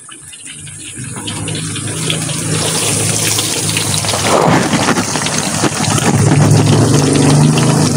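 Banana fritters sizzling in hot oil in a wok, a steady crackling hiss that grows louder through the first two-thirds, with a low hum underneath that strengthens in the second half.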